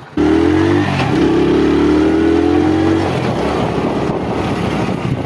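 Motorcycle engine pulling away and accelerating: the revs climb, drop with a gear change about a second in, climb again, then settle as it runs along the road.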